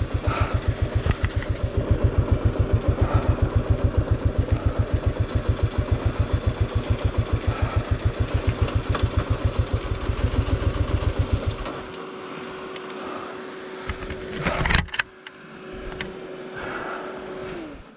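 Kawasaki KLR650's single-cylinder engine running at low revs with an even beat, then stopping about two-thirds of the way through. A steady whine carries on after it and dies away with a falling pitch near the end, and a loud thump comes a few seconds after the engine stops.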